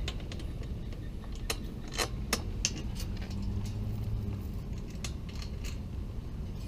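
Light metal clicks and clinks of J-bolts, washers and wing nuts being handled and fitted to bolt a scooter cargo rack on, about ten separate clicks, most in the first half.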